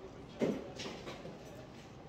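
A person drinking from an aluminium soda can: a short, loud mouth sound about half a second in, then fainter sipping sounds.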